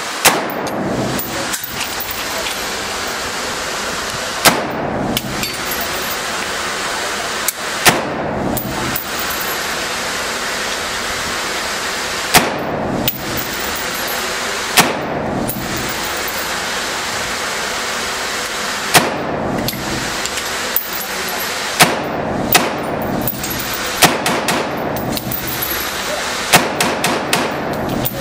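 AR-15 rifle fitted with a fake suppressor firing about a dozen single aimed shots, each a sharp crack with a short echo, several seconds apart at first and coming faster near the end. A steady hiss runs between the shots.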